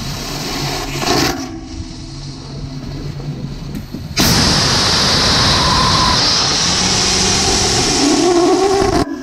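Nitrous-oxide/methanol liquid bipropellant rocket engine on a static test stand: a steady hiss, then about four seconds in the engine lights and fires loudly and steadily for about five seconds before cutting off suddenly. The engine went out because methanol pressure fell below chamber pressure, stopping fuel flow to the combustion chamber.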